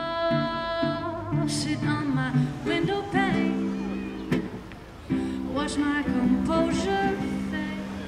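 A woman singing to her own strummed ukulele, with a brief lull about halfway through.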